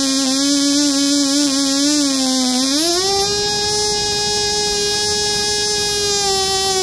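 Cox TeeDee .010 miniature two-stroke glow engine running with a tiny RC carburetor, a high-pitched whine. Its pitch rises smoothly about three seconds in as the throttle opens, holds steady at high speed, then drops back near the end as it is throttled down.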